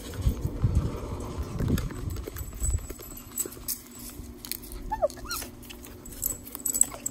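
Dull thumps from a handheld phone being carried while walking, then a dog's short falling whine about five seconds in.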